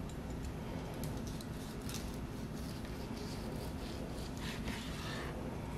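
Long slicing knife sawing through the glazed, crusted bark of a smoked ham on a wooden cutting board: faint scraping strokes that are strongest near the end, over a steady low background hum.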